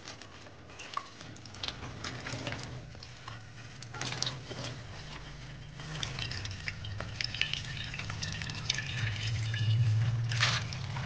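Tap water running and splashing into a stainless steel pan in a steel sink while a rubber-gloved hand scrubs it, with scattered small clicks and knocks. A low steady hum sits underneath and grows louder near the end.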